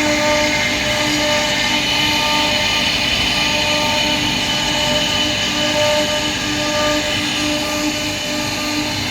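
CNC router spindle running steadily, a held machine whine with a rushing noise beneath it.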